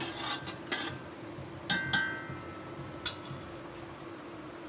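A metal spoon stirring rice and water in an aluminium pot, scraping a few strokes, then two sharp metallic clinks that ring on briefly as the spoon knocks against the pot, and a lighter clink about a second later.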